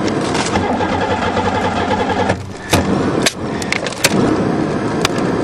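Attempt to start a crushed Buick's 3.8 V6 with a screwdriver in the broken ignition lock: a steady hum drops out briefly about two and a half seconds in, followed by a few sharp clicks, and the engine does not start, which the owner puts down to a battery connection problem.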